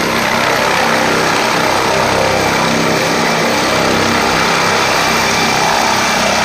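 Helicopter engine and rotor sound, a steady loud drone with a low hum underneath.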